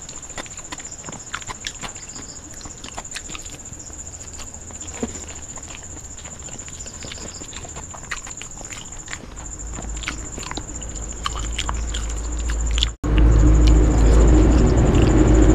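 Fingers mixing rice and curry on a steel plate: soft wet squishing with many small clicks. About three seconds before the end, much louder, close-miked mouth and chewing sounds begin as a big handful of rice goes into the mouth. A thin, steady high whine runs underneath.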